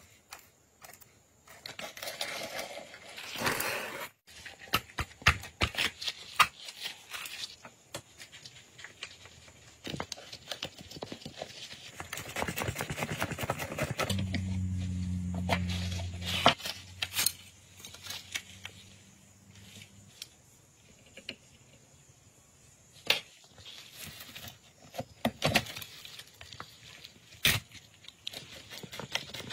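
Steel picks scraping and prying at the rusted parts of a pistol, with scattered metallic clicks and taps as crusted pieces and springs are worked loose. A steady low hum sounds for a couple of seconds a little past the middle.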